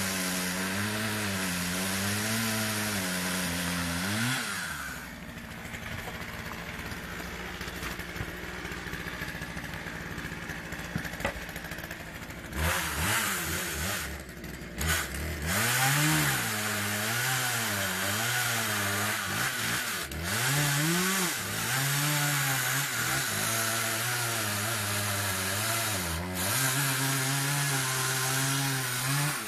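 Two-stroke chainsaw cutting firewood logs, its engine pitch swinging up and down as the blade bites and frees. About five seconds in it drops to a quieter, steadier idle, and it revs back up to cut again from about thirteen seconds.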